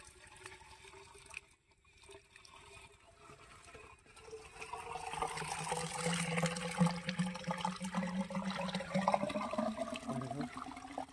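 Water poured from a bucket into the casing of a diesel-engine-driven water pump to prime it before starting, splashing and gurgling as the casing fills. It begins faintly and grows louder about four seconds in, the gurgle edging up in pitch as the casing fills.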